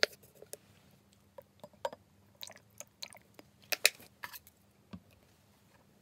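Irregular small clicks, taps and short crackly noises as water is added to white glue in a glass drinking tumbler. The sharpest are a click at the very start and two close together about four seconds in.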